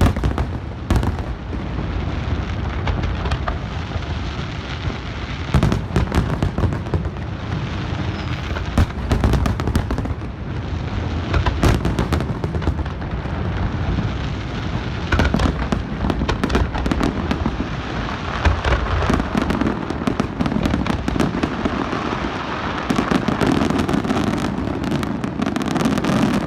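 Aerial fireworks display heard from the crowd: a steady barrage of booming shell bursts and sharp crackling reports with no let-up, heaviest near the end.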